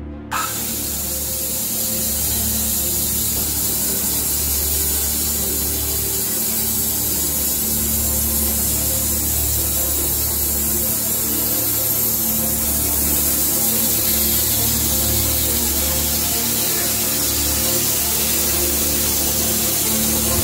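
Portable bandsaw mill cutting through a box elder burl log: a steady saw hiss with the mill's low hum underneath, starting suddenly just after the start. A louder low rumble comes in at the very end.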